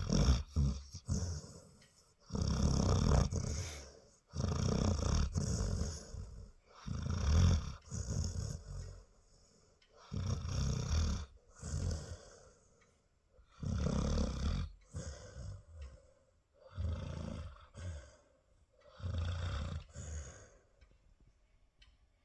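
Labrador retriever mother snoring in her sleep: seven long snores in a steady rhythm, roughly one every three seconds.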